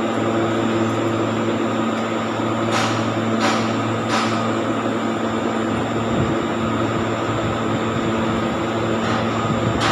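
An INVT HT33120 three-phase UPS running on its inverter at light load: steady cooling-fan noise with a constant electrical hum. A few faint clicks come about three to four seconds in.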